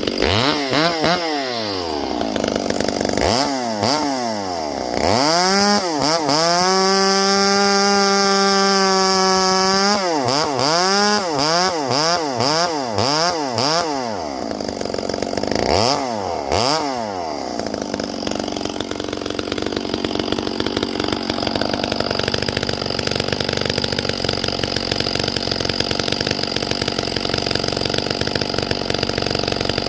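Gas chainsaw revving up and down repeatedly, held at full throttle for about four seconds, then running on steadily for the second half.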